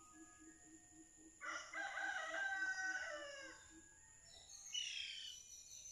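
A rooster crowing once: a call of about two seconds that drops in pitch at the end. A shorter, higher falling bird call follows, over a steady high-pitched background hum.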